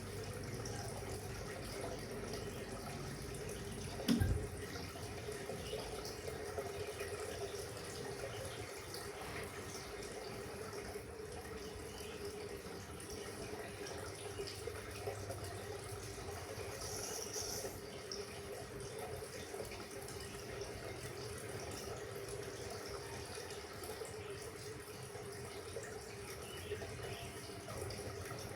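Water running or bubbling steadily under a faint hum, with one sharp thump about four seconds in.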